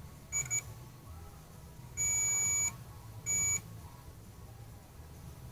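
Multimeter continuity tester beeping as its probes bridge connected points on the freshly soldered quadcopter wiring: a quick blip or two a fraction of a second in, a longer beep about two seconds in, then a shorter one about a second later.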